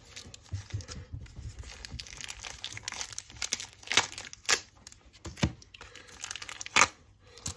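Plastic wrapping and card sleeves crinkling and rustling as they are handled, with scattered sharp clicks and snaps, the loudest about four and seven seconds in.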